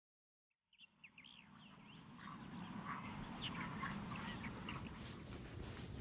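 Flock of wild waterbirds calling, with many short rising and falling calls, over a low outdoor rumble and hiss that grows louder. The sound starts after a brief silence.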